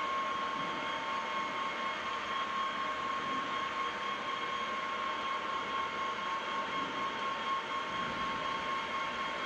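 Victor 1630 gearhead lathe running at a constant speed: a steady whir with a steady high whine from the geared headstock.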